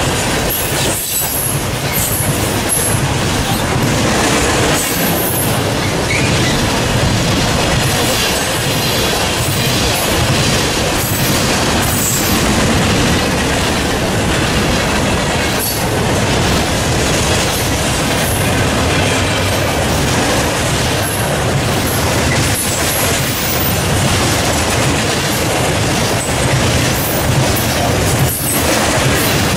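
Cars of a Norfolk Southern freight train rolling past close by: a loud, steady rumble of steel wheels on rail, broken by irregular sharp clacks as the wheels cross rail joints.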